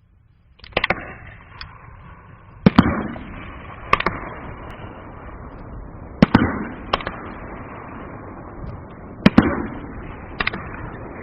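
A multi-shot aerial fireworks cake firing shells that burst with sharp bangs, one every one to three seconds, with a rough rumble and crackle hanging on between the bangs. The first shot goes off under a second in.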